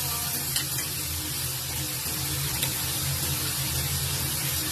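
Vegetables sizzling as they are stir-fried in woks over gas burners, a steady hiss over a low hum, with a couple of light clicks of a metal ladle against a wok.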